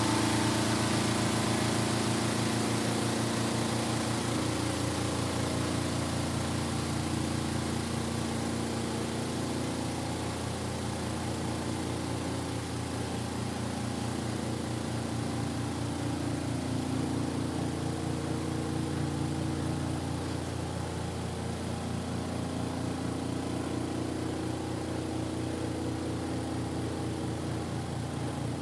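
Kuppet portable washing machine running steadily as it drains the wash water, a constant motor-and-pump hum with wavering tones over it, slightly louder in the first few seconds.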